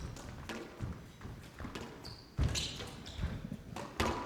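Squash rally: sharp strikes of the ball off rackets and the court walls, the loudest about halfway through and near the end, with short high squeaks of shoes on the court floor.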